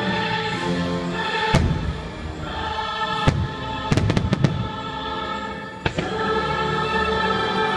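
Aerial fireworks shells bursting with several sharp bangs, including a quick run of them about four seconds in, over the show's loud soundtrack of orchestral music with a choir singing.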